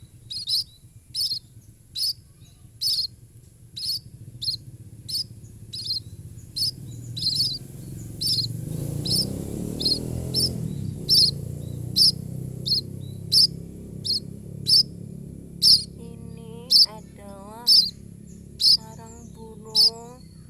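Fallen munia chick calling with short, high chirps, about one a second, steady throughout. A low rumble swells and fades midway, and a lower, wavering call repeats in the last few seconds.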